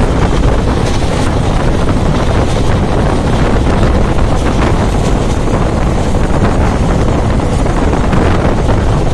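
Wind buffeting the phone's microphone at the open door of a fast-moving passenger train, over the steady rumble of the train running along the track.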